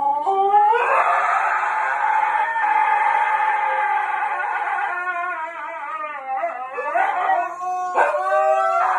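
A dog howling: a rising howl held long, then several shorter wavering howls, over music.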